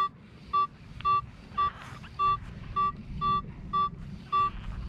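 Metal detector giving its target signal: short, even, pitched beeps about twice a second as it passes back and forth over a buried target.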